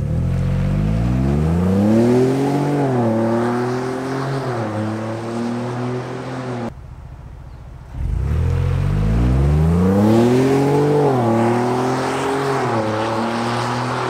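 2021 Ford Bronco Wildtrak's twin-turbo 2.7-litre EcoBoost V6 through a Magnaflow Overland exhaust, heard from behind on two wide-open-throttle pulls from a standstill, the first with the longest tailpipe setup and the second with the shortest. In each, the engine climbs in pitch, drops at an upshift about two and a half seconds in, climbs again and drops at a second shift, with a short quieter break between the two pulls.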